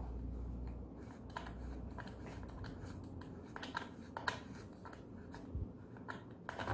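Scattered light clicks and taps of a metal combination wrench working the chain-tensioning screw on a chainsaw's clutch cover, with a faint low hum underneath.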